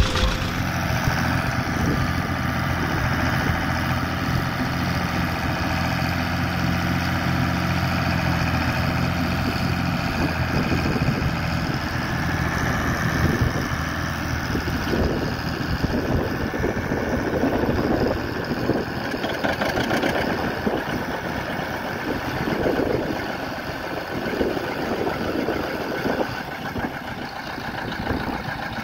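Farm tractor engines running as an Allis-Chalmers tractor and a John Deere tractor work against each other on a chain. The engine sound is steady for about the first ten seconds, then turns rougher and more uneven.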